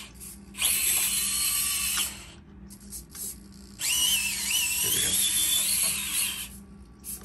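Small SCX24 RC crawler's stock brushed motor and drivetrain whining at speed in two throttle bursts, about a second and a half and then nearly three seconds long. The pitch wavers with the throttle in the second burst. The truck is towing a trailer loaded with a heavier truck.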